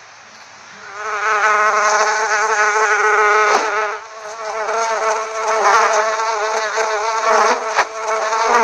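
A fly buzzing in flight: a steady buzz whose pitch wavers. It starts about a second in, dips briefly midway and stops at the end, with a few sharp clicks along the way.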